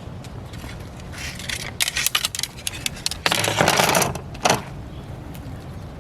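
Bursts of rapid clicking and clattering, then a brief rushing noise a little over three seconds in and one more sharp clatter.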